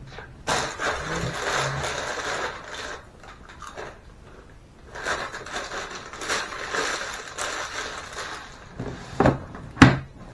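Clear plastic bag crinkling and rustling as it is handled, in two spells, followed by two sharp knocks near the end.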